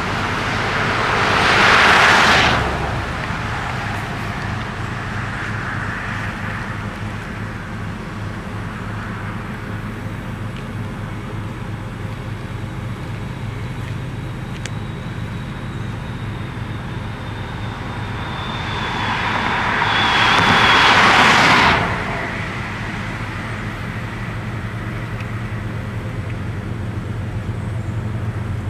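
Cars passing on the road, twice: a swell of tyre and engine noise about two seconds in, and another that builds around twenty seconds in and cuts off quickly. A steady low hum runs underneath.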